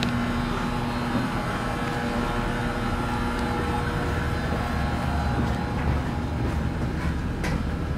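Steady low rumble and hum of a navy ship's interior machinery and ventilation, with a steady hum tone that drops away about a second in.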